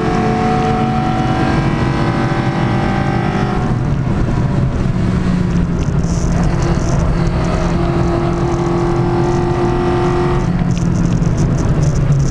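Peugeot 106 track car's engine, fitted with Jenvey individual throttle bodies, running hard under load, heard from inside the cabin. The note holds mostly steady, drops about four seconds in and changes again near the end.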